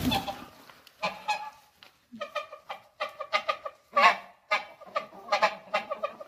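Domestic grey goose honking: a quick run of short, nasal honks, about two or three a second, starting about a second in.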